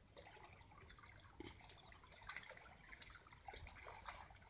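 Faint, irregular splashing and dripping of shallow muddy water being waded through and stirred by hand.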